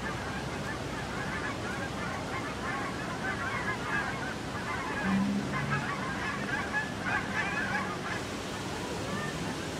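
Waterfowl honking and calling throughout, many birds at once, with a short low two-note sound about five seconds in.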